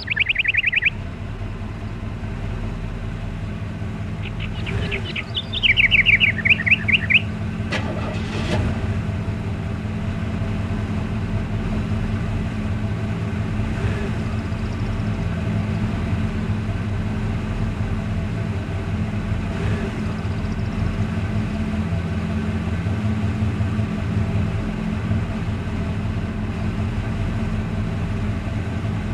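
Steady low engine hum, like a vehicle idling. A bird's rapid chirping trill sounds right at the start and again about six seconds in.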